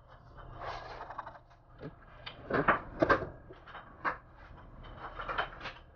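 Hands handling parts on a wood-grain cabinet shelf: rubbing and scraping with several sharp knocks as pieces are set down, the loudest about three seconds in.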